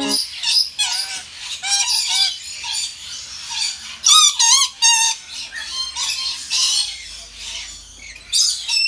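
Red lories (Eos bornea) calling in a string of shrill squawks and short whistled notes. The loudest is a run of rapid warbling squawks about four to five seconds in.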